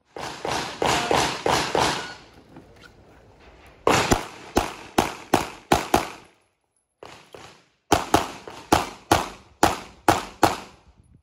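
Pistol shots fired in rapid strings of several shots each, about three a second, with short pauses between the strings, each shot ringing out briefly after the crack.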